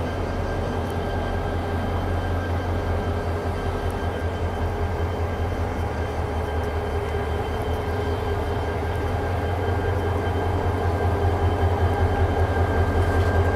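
KTM diesel passenger train idling while stopped: a steady low engine hum with a faint high whine, growing slightly louder near the end.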